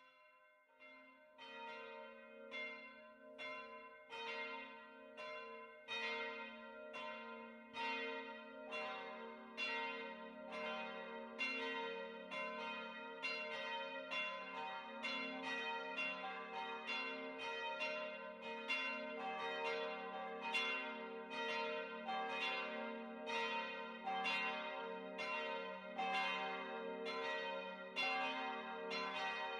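Several church bells ringing together in a full peal, with strikes coming about twice a second over the bells' lingering hum. The sound fades in at the start, and a deeper bell joins about a third of the way in.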